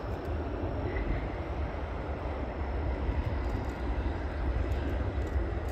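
Boeing 747-400's four jet engines, GE CF6-80C2s, giving a steady deep rumble and roar as the jumbo jet rolls down the runway just after touchdown.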